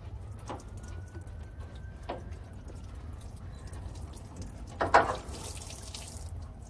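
Diesel fuel dripping and trickling from a loosened fitting under a fuel tank into a plastic tub below, with scattered small drips. One louder sudden sound comes about five seconds in, followed by a brief hiss.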